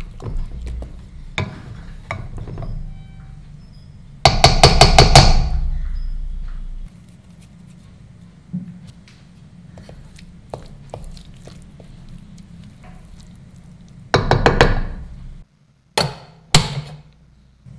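A utensil knocking and scraping in a steel pressure cooker of mashed dal, with two loud spells of rapid knocking, then two sharp clicks near the end.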